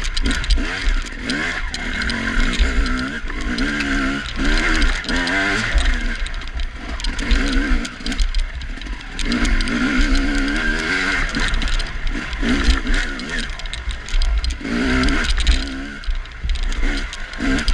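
Dirt bike engine revving up and down again and again as the rider works the throttle through a twisty woods trail. It is heard through a mud-covered onboard camera with a heavy low rumble.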